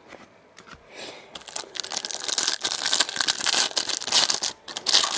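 Trading card pack wrapper being torn open and crumpled, a loud crinkling rustle that starts about a second in after a few light clicks.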